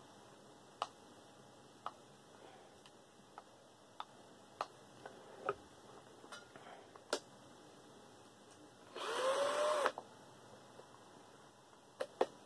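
Scattered light clicks and taps of screws, tools and fan parts being handled, with one burst of about a second near nine seconds where a power drill spins up and winds down.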